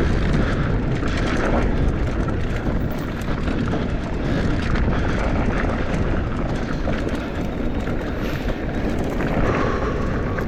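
Wind rushing over an action camera's microphone while mountain-bike tyres rumble over a dirt and rock trail, with small rattles from the bike on the rough ground.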